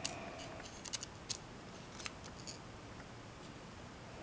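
Small sharp metallic clicks of steel tweezers picking pins and springs out of a brass lock cylinder, several quick ticks in the first two and a half seconds, then quiet handling.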